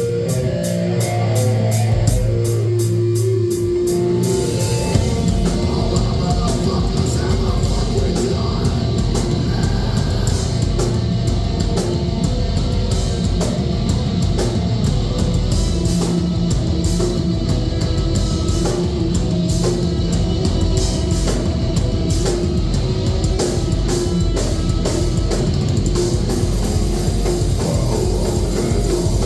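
Heavy metal band playing live: distorted electric guitars and a drum kit. A held chord rings for the first few seconds, then the full band comes in with fast, dense drumming.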